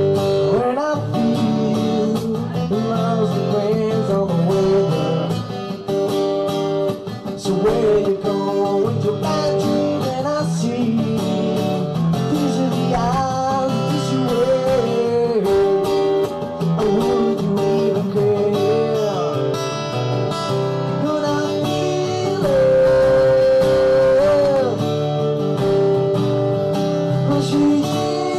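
Live music: strummed acoustic guitar with a man singing, holding one long note about three-quarters of the way through.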